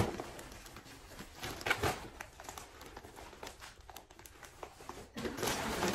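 Plastic bubble-lined mailer bag crinkling and rustling as it is handled and opened, in irregular bursts with the loudest about two seconds in and near the end.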